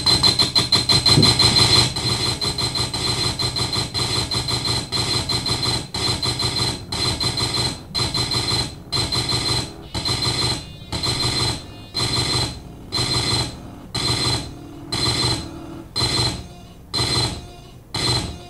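Electronic noise from a laptop sound-art performance: harsh bursts of noise with a steady high tone running through them. The bursts come densely at first, then spread apart into a slowing pulse.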